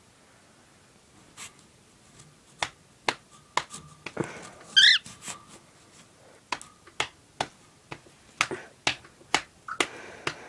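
A series of sharp clicks or taps, a few a second at an uneven pace, with a single short warbling chirp from the cockatiel about five seconds in and a brief chirp near the end.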